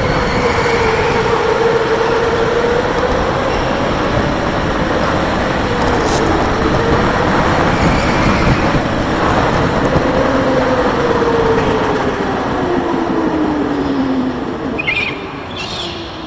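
Electric go-kart motor whining under a loud rumble of tyres and chassis, heard from onboard. The whine rises and falls with speed through the corners, then glides down in pitch near the end as the kart slows.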